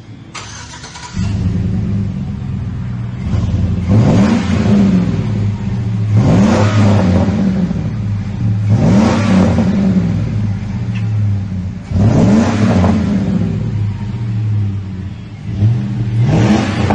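A 2005 Chevy Silverado's 5.3-litre V8 starts up about a second in and idles through a new cat-back dual exhaust with a Magnaflow Melotone single-in/dual-out muffler and 4-inch tips. It is blipped five times, each rev rising and falling back to idle over about a second and a half.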